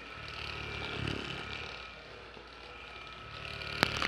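Electric handheld massager running against the lower-back muscles, a steady motor hum and whine that swells about a second in. A sharp click near the end.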